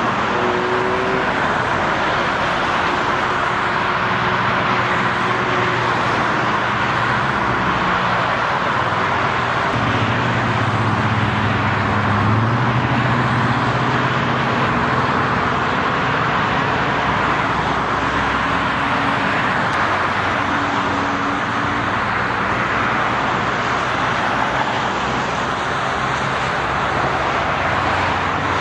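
Freeway traffic: a steady rush of tyre and engine noise from vehicles passing, with a lower engine drone from a heavier vehicle swelling about ten seconds in.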